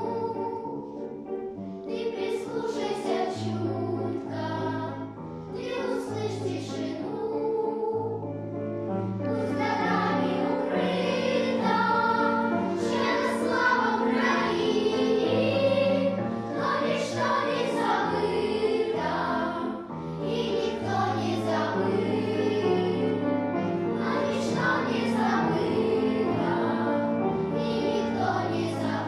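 A children's choir singing a song together over instrumental accompaniment that holds long, steady bass notes.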